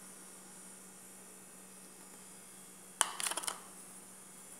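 Light clatter of kitchen utensils, a cup or spoon against the cake pan: a sharp click and then a few quick knocks about three seconds in, over a faint steady electrical hum.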